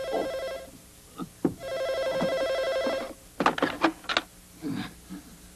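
Electronic desk telephone ringing twice in long, even bursts. Then a quick run of plastic clicks and knocks as the handset is snatched up from the cradle.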